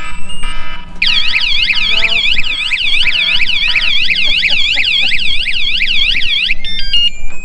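Bicycle anti-theft alarm sounding a fast warbling siren, about four sweeps a second. It starts about a second in and cuts off near the end, with stepped electronic beeping tones before and after it.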